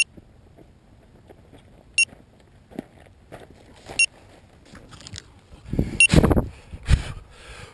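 Quadcopter's electronic alarm beeper giving a short high beep once every two seconds while the craft lies on the ground. From about six seconds in there is heavy handling rustle and footsteps as it is picked up and carried.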